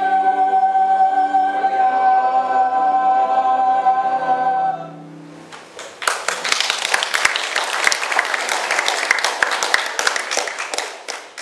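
A church choir holds the last notes of an Easter hymn, cutting off a little under five seconds in. After a short pause, the congregation applauds for about five seconds.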